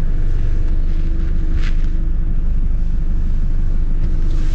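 A 3-litre turbo-diesel engine of a Nissan Terrano 4x4 running steadily at low revs as the vehicle reverses, with a steady whine on top from a power steering pump that is struggling to assist. A brief higher-pitched noise comes about a second and a half in.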